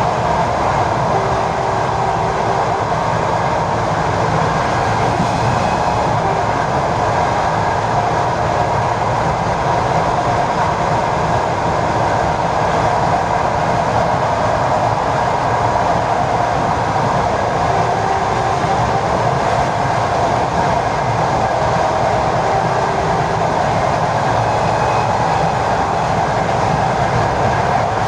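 ED4M electric multiple unit running steadily along the line, heard from on board: a continuous rumble of wheels and running gear with a faint steady hum over it.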